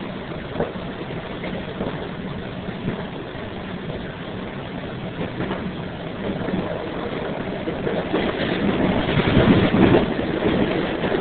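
Washington Metrorail train running, heard from inside the car: a steady rumble with a low hum and a few sharp clicks in the first few seconds, swelling louder about eight seconds in and easing near the end.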